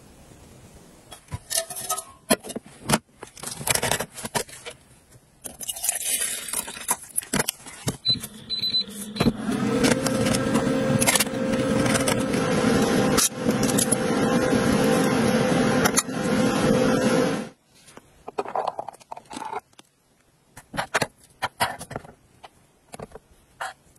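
Induction cooktop heating a stainless steel pot: a steady hum with a loud rushing hiss that cuts off suddenly. It is framed by scattered clicks and clatter of lids and containers, with scraping near the end as cooked rice is scooped from a plastic container.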